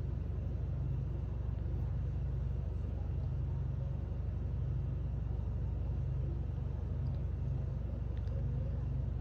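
Steady low rumble and hum of background noise, even throughout, with no distinct events.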